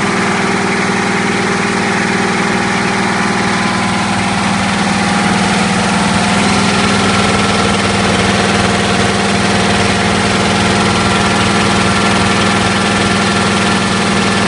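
Three-cylinder piston air compressor driven by a 10-horsepower electric motor, running steadily under load as it pumps the tank up, with a strong steady hum. The level rises slightly about five seconds in.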